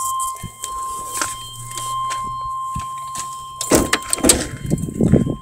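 Steady high-pitched warning tone inside a 1995 Chevy truck cab with the engine off, over scattered clicks and handling noise; loud knocks come around four seconds in.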